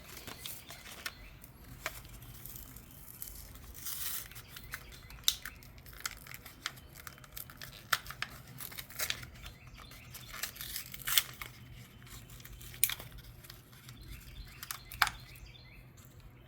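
Packaging of a replacement 7506 turn-signal bulb being torn open and crinkled, with scattered sharp clicks and rustles over a faint steady low hum.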